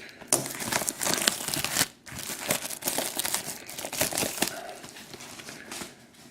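Cellophane shrink wrap crinkling and tearing as it is stripped off a sealed trading-card box, in quick crackly bursts with a short pause about two seconds in.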